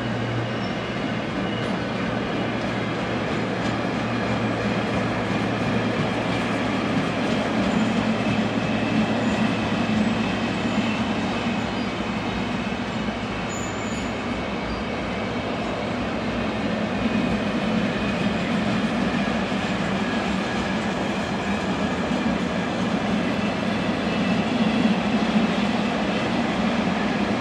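A train running on the tracks, a steady rail noise that grows a little louder about eight seconds in and again near the end.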